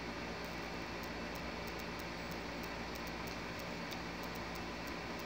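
Steady background hiss and hum, with faint, light ticking about three times a second.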